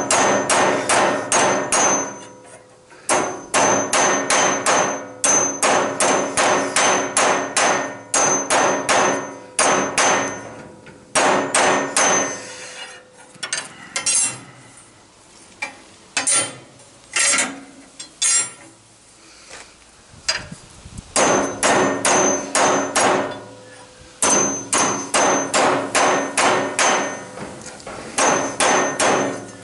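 Hammer striking a steel rod laid on a bench vise's anvil, in fast runs of ringing metal-on-metal blows, several a second, with short pauses between runs: the bent rod is being straightened.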